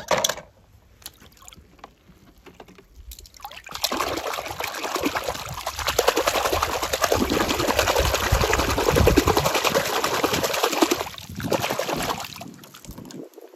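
Water splashing and trickling for about eight seconds, starting about four seconds in and fading out near the end, after a sharp click and a few small clicks.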